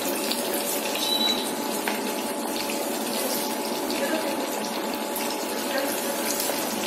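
Mutton-and-rice-flour patties deep-frying in hot oil: a steady sizzle of bubbling oil, with a faint steady hum underneath.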